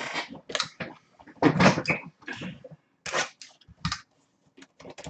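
Boxes of trading cards being picked up and handled on a desk: a run of separate scrapes, rustles and knocks. A short, low knock comes nearly four seconds in.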